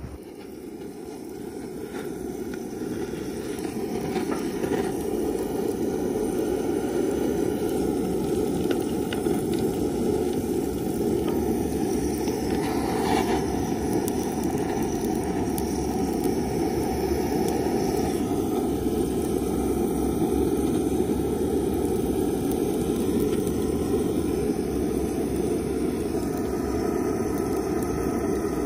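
Handheld butane gas torch burning steadily as its flame is held against lumps of hardwood charcoal in a grill to light them. Its steady rushing noise builds over the first few seconds, then holds level.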